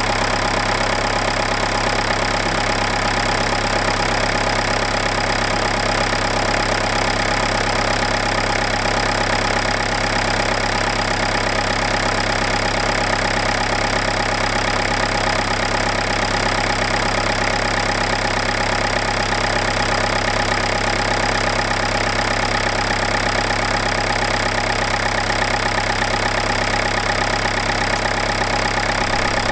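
Renault 1.5 dCi (K9K) 90 hp four-cylinder common-rail turbodiesel idling steadily, still cold after a start at −7 °C, heard close up from the open engine bay.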